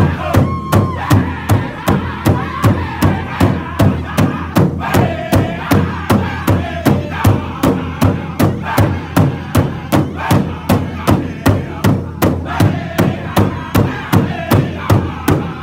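Powwow drum group singing in high voices over a large shared powwow drum, struck in unison with drumsticks at a steady beat of about two and a half strokes a second.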